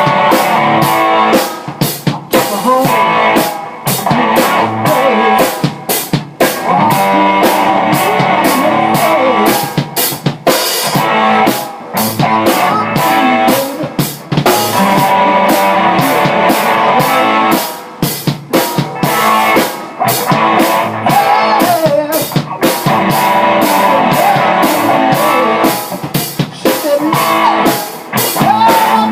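A rock band playing at rehearsal: drum kit keeping a steady beat with snare and bass drum under guitar.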